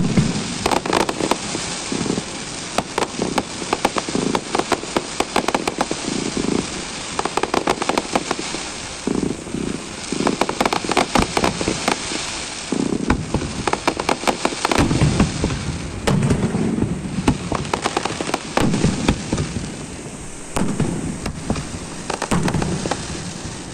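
Fireworks going off: dense, rapid crackling and popping throughout, with repeated deeper bangs.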